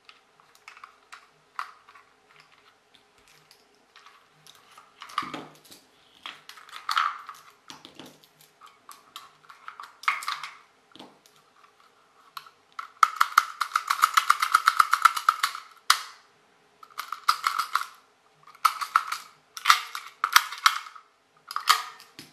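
Plastic clicks, scrapes and knocks as AA batteries are prised out of a Fisher-Price Shake 'n Go toy car's battery compartment with a small screwdriver and set down on a table, with a rapid rattling lasting about three seconds midway.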